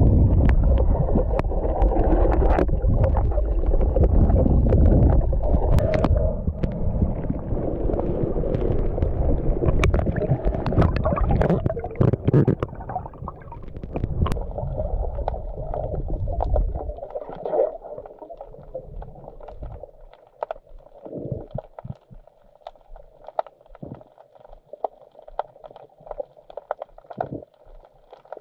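Water sloshing and gurgling close to the microphone. About 17 seconds in it dies down to quieter water with scattered small clicks.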